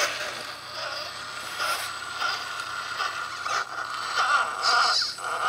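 Cross RC UC6 6x6 scale truck's electric motor and gearbox whining steadily as it crawls, with scattered scrapes and creaks from the tyres and chassis on the ground.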